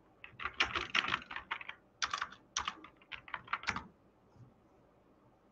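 Typing on a computer keyboard: a quick, uneven run of key clicks that stops about four seconds in.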